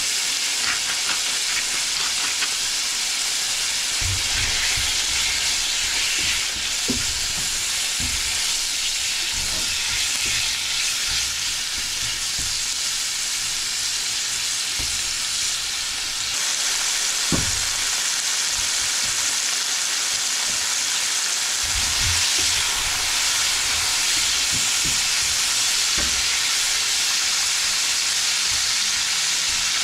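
Food sizzling steadily in a frying pan on the stove, with a few short dull knocks in between.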